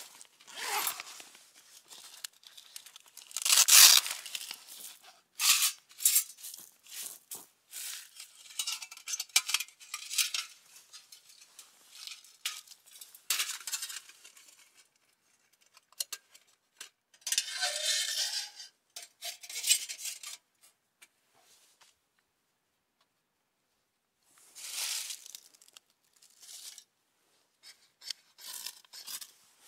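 Irregular rustling, crinkling and tearing: dry sticks, leaves and paper being handled and torn by gloved hands to make kindling for a small wood stove. The sounds come in short spells, with a pause of a few seconds about two-thirds of the way through.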